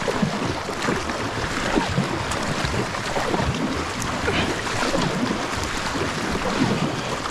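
Rushing, splashing river water around a kayak being paddled upstream through rapids, a steady dense wash with irregular small splashes.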